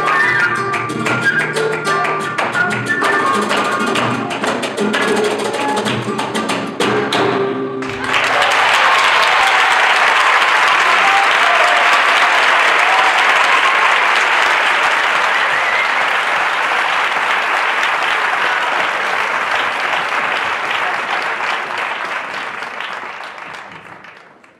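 Live flamenco music with sharp percussive strikes cuts off about eight seconds in. A theatre audience then applauds in a dense, steady wash that fades away near the end.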